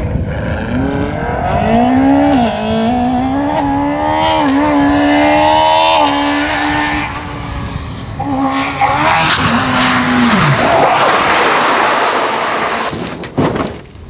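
Rally car engine at high revs, its pitch stepping up and down through several gear changes, then falling away about ten seconds in. A loud rush of tyre noise follows, and a few sharp clicks come near the end.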